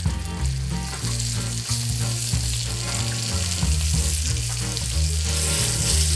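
Breaded eggplant-and-ground-pork cutlets deep-frying in hot oil: a steady, dense sizzle of bubbling oil that grows a little louder near the end. This is the quick second fry that crisps the coating.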